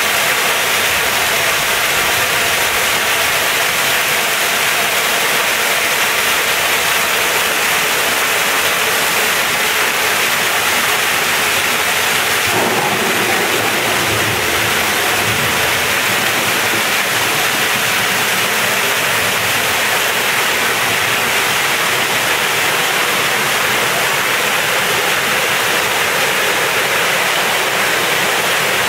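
Falling water from an ornamental waterfall, a curtain of streams splashing into a pond, making a loud, steady rush. The rush grows a little deeper about halfway through.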